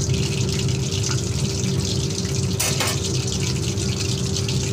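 Batter-coated chicken pieces deep-frying in hot oil in a kadai, a steady sizzling and bubbling over a low hum, with one brief knock about two and a half seconds in. The chicken is slowly browning in oil kept at medium heat.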